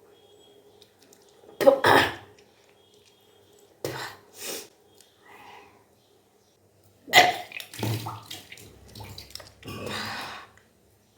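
A person retching repeatedly and bringing up the salt water drunk for kunjal kriya, a deliberately induced yogic vomit to cleanse the stomach. The water gushes out in several short, loud bursts a few seconds apart, with splashing.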